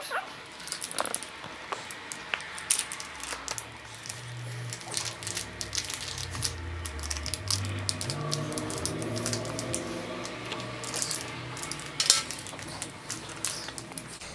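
Small plastic and metal trinkets clicking and tapping as they are handled and unwrapped, in many quick irregular clicks.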